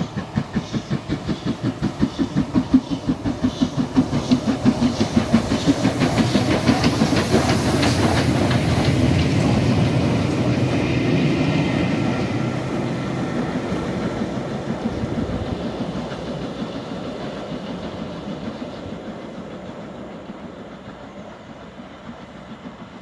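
LMS Princess Coronation Class 4-6-2 steam locomotive 6223 Duchess of Sutherland, a four-cylinder Pacific, working at speed. Its exhaust beats come in a rapid, even rhythm of about four a second as it approaches. Wheels clatter on the rails as it passes close by at its loudest, about eight to eleven seconds in, and the sound then fades steadily as it draws away.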